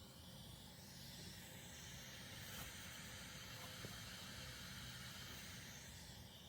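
Faint, steady hiss from a Gemini PA-7000 preamp's phono stage turned up to full volume. This is its noise floor after the stock 4558 op-amp was replaced with a lower-noise 2068.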